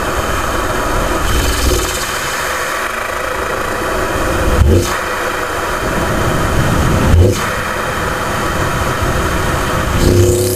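BMW F10 M5's twin-turbo V8 heard through its cone-filter cold air intake from a microphone behind the front grille: steady intake rush over the engine note. Two short thumps come about four and a half and seven seconds in, and the engine note rises near the end.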